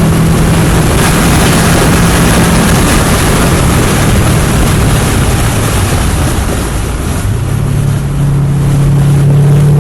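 2021 Subaru WRX STI's turbocharged 2.5-litre flat-four, fitted with a Blouch 20G-XTR turbocharger, running hard on a race track, heard from inside the car with heavy wind and road noise. The engine note sags and falls slightly past the middle, then steps up about three-quarters of the way through and holds steady.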